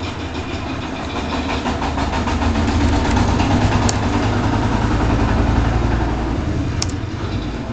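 Low, steady engine rumble that builds up about two seconds in and eases off near the end, with two sharp clicks, one about four seconds in and one near the end.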